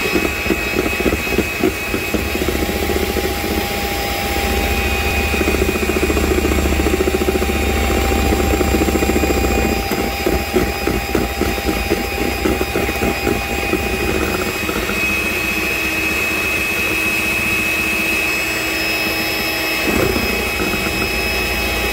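Electric mixer running steadily, its wire whisk beating black sesame whipped cream with a fast, dense churning beat over a motor hum. The low hum eases about halfway through.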